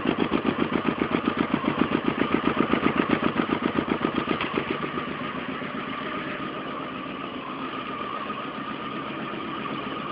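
2004 Honda Shadow Spirit 1100's V-twin idling on its stock factory exhaust with the baffles still in. It is a steady, even, not very loud beat of about seven or eight pulses a second, the mild 'sewing machine' sound of the baffled pipes. The beat grows fainter and smoother about halfway through.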